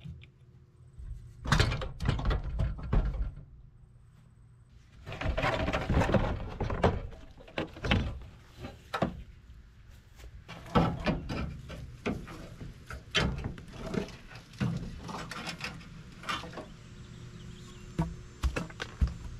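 Irregular knocks, clicks and clattering from hands working on a car's front end, handling the loosened bumper and body panels. After a quiet first second or so come two busy bursts of clatter, then scattered sharp knocks.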